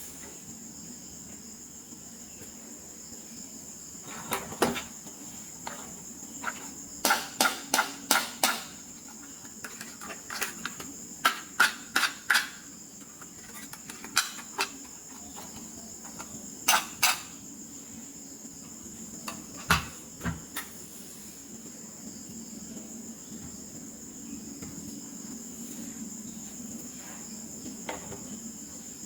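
Small hard plastic toy pieces being handled and set down, giving clusters of sharp clicks and taps, several in quick succession. A steady high-pitched whine runs underneath.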